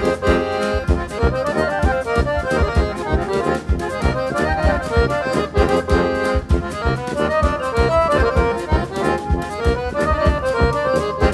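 Instrumental band music led by an accordion, with a steady beat underneath.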